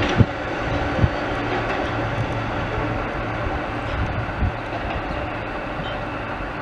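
NYC subway train running on the rails as it pulls away, with a steady low hum. A few sharp clacks of wheels over the track come just after the start, about a second in and again about four and a half seconds in. The sound fades slightly as the train recedes.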